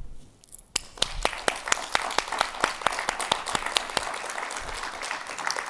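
Audience applauding, a dense patter of many hands clapping that starts under a second in and thins out near the end.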